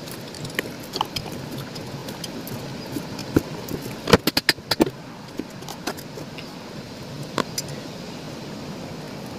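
Metal ceiling-fan parts and screws clinking and tapping as the fan is reassembled: scattered light clicks, with a quick run of sharper clicks about four seconds in.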